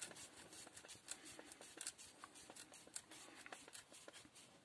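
Faint, irregular small clicks and ticks of a hand screwdriver turning a screw into the plastic clamshell housing of a Black&Decker 14.4V cordless drill, as the replacement housing halves are screwed together.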